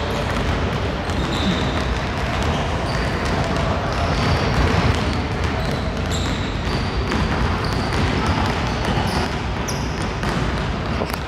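Many basketballs being dribbled at once on a gym floor, a dense, steady patter of bounces with short high squeaks mixed in.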